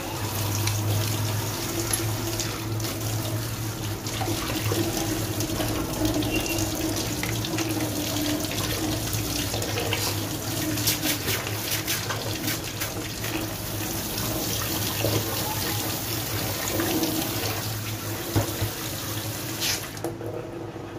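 Tap water running into a stainless steel kitchen sink over chopped vegetable pieces in a plastic colander, a steady splashing hiss. Around halfway there are a few sharp knocks as the colander is handled, and the water shuts off suddenly just before the end.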